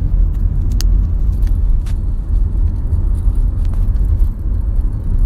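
A car driving, heard from inside the cabin: a steady low rumble of road and engine noise, with a few faint ticks.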